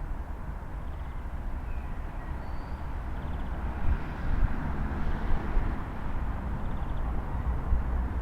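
Outdoor background noise: a steady low rumble with a hiss over it, growing a little louder about halfway through, and a few faint high chirps.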